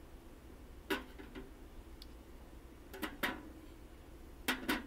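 Folding pocket knives being handled and set down in a small tool box's top tray: sharp clicks in three pairs, about a second in, about three seconds in and near the end.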